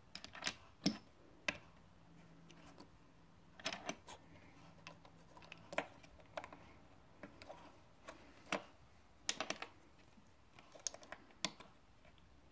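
Plastic Lego bricks clicking as they are handled and pressed together: a dozen or so sharp, irregular clicks.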